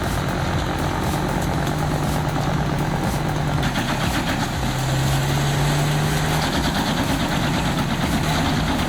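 An engine running steadily at idle, with a low, even hum. Its pitch dips for a couple of seconds about five seconds in, then comes back.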